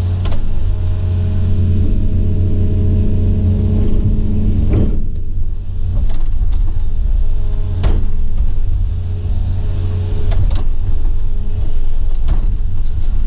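Excavator's diesel engine running steadily with a low drone while digging, with a handful of sharp knocks from about five seconds in.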